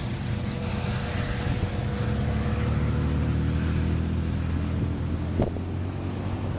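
Diesel freight locomotives running out of sight, a steady low drone of engine pitches that swells in the middle, with a sharp click about five and a half seconds in.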